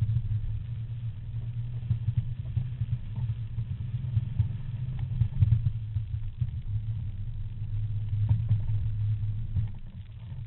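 Off-road 4x4's engine running with a low rumble that rises and falls in level as it drives over sand, easing off near the end.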